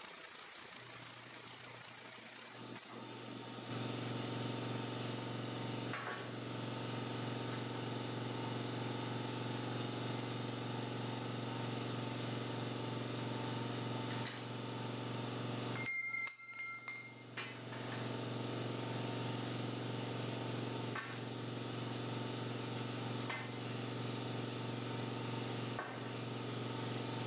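Electric air compressor running steadily with a low motor hum as it pumps its tank back up, growing louder in the first few seconds. A brief metallic clink a little past halfway.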